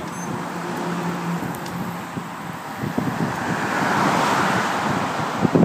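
A road vehicle passing, its tyre and engine noise swelling to its loudest about four seconds in and then easing off.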